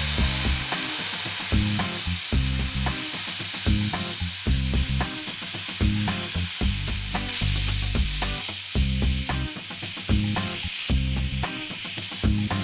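Background music with a steady beat and a moving bass line, over a steady high hiss.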